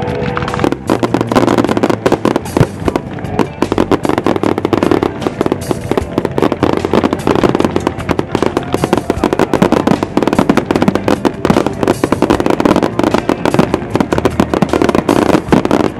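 Fireworks display: a continuous barrage of bangs and crackling as volleys of rockets and aerial shells are fired and burst.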